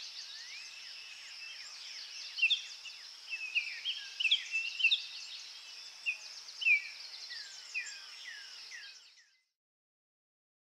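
Birds calling: many short chirps that slide down in pitch, over a steady high background chorus. The sound fades out about nine seconds in.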